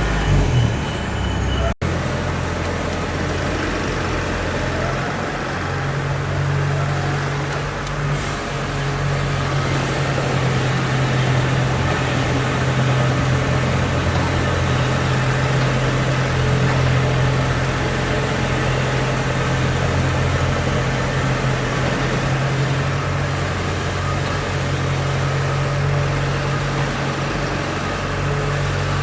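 Kubota DC70 combine harvester's diesel engine running steadily, being run for a check after servicing, with a brief dropout about two seconds in.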